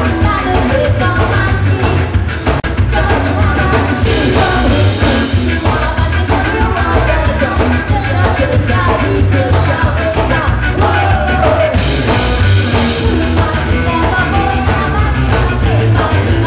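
A live ska-punk band playing loud: a woman singing over electric guitar, bass and a steady drum beat.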